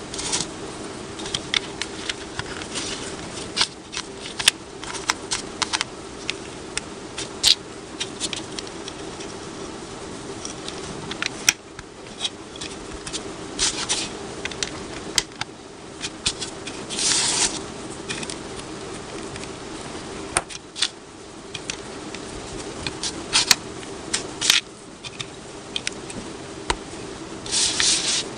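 Small plastic building bricks clicking and rattling as they are picked up from a table and pressed together, in many short irregular clicks with a few brief rustles of pieces being moved about. A steady low hum runs underneath.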